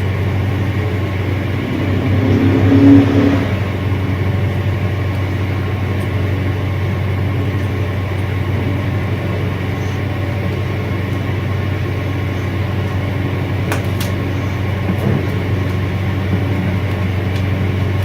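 Repaired National exhaust fan running steadily, its motor giving a constant low electric hum with the blades' whir: the fan working again after the repair.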